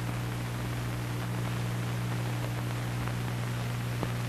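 Steady hiss with a low mains hum, the background noise of an old film soundtrack, with one faint click about four seconds in.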